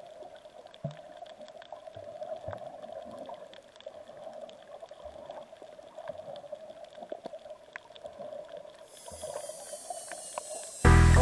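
Underwater water sound from a camera submerged on a coral reef: a muffled, steady wash with scattered faint clicks. Loud music starts suddenly near the end.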